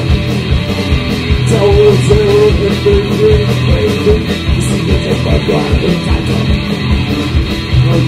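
Live punk rock band playing an instrumental passage: electric guitar over bass and a drum kit with steady drum and cymbal hits. A sustained guitar line stands out from about a second and a half in.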